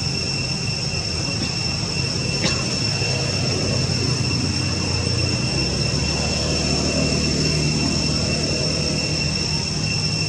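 A steady high-pitched whine at two pitches, one an octave above the other, over a low rumble, with a single sharp click about two and a half seconds in.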